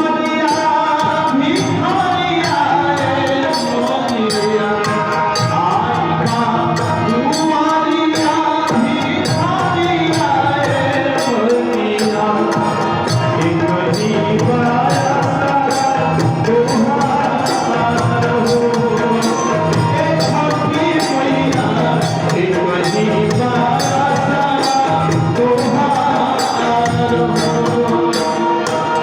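Live Bhojpuri devotional band music: a melody played over a steady, evenly spaced percussion beat.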